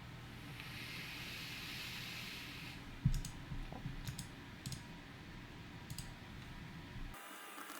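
A handful of sharp, separate clicks at a computer, starting about three seconds in, roughly half a second apart and then more spaced out. They follow a soft hiss in the first few seconds.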